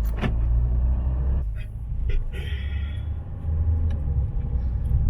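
Steady low rumble of a car on the move, heard from inside the cabin, with a sharp click right at the start and a few lighter knocks.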